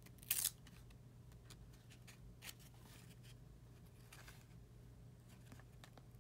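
Glossy chrome trading cards slid against one another by hand as a stack is flipped through: a short scraping rustle about half a second in, then a few faint card slides over a low steady hum.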